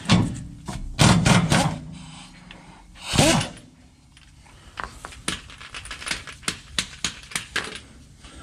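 A hand ratchet clicking on the drive shaft carrier bearing bolts of a step van, in a run of sharp ticks about three a second from around five seconds in. A few louder knocks and short vocal sounds come in the first three seconds.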